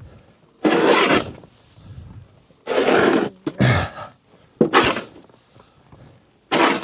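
Snow shovel strokes: about five scrapes and scoops of heavy snow, each half a second or so, a second or two apart.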